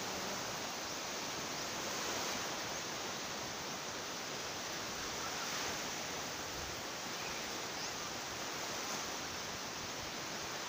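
Steady wash of surf: small waves breaking and running up a sandy beach.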